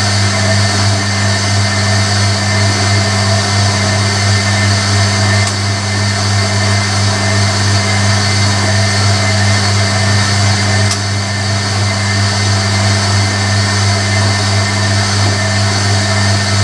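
Hoover Electronic A3172 washing machine's drain pump running steadily with a strong low hum after the rinse water is pumped out, the machine waiting to go into spin. Two faint ticks come about five and eleven seconds in.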